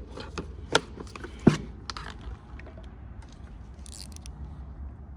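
Sharp clicks and knocks, the loudest about a second and a half in, then light scraping of small metal and plastic parts and tools being handled on a two-stroke lawn mower.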